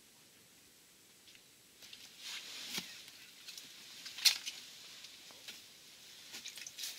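Faint quiet for about two seconds, then rustling and crunching with scattered sharp clicks as an angler handles a winter ice-fishing rod and hauls in the line over icy slush. The loudest click comes about four seconds in.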